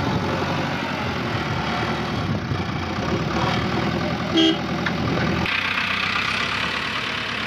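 JCB 3DX backhoe loader's diesel engine running steadily as the machine drives over the dirt, with one short horn toot about four and a half seconds in. About five and a half seconds in the sound changes to another diesel tractor engine running.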